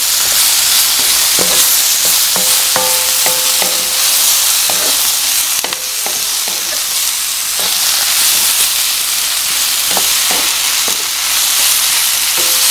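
Chicken, onion and bell pepper sizzling in hot oil in a pan, a steady loud high hiss. A wooden spatula stirring the food scrapes and knocks against the pan every second or so.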